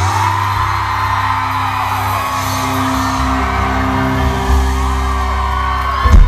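Live band holding sustained chords with bass and drums while the audience screams and whoops, and a loud thump about six seconds in.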